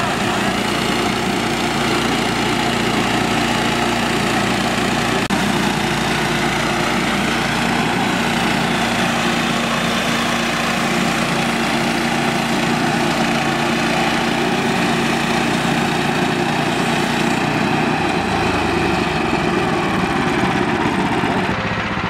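Portable bandsaw mill's 9.5-horsepower gas engine running steadily under load as the blade cuts along a log. The note changes near the end.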